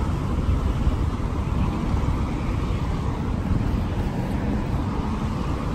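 Steady city traffic noise: an even, low rumble with no distinct events.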